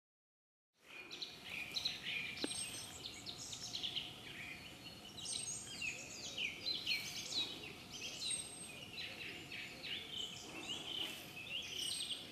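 Several songbirds singing at once, a dense chorus of short high chirps and trills, starting about a second in.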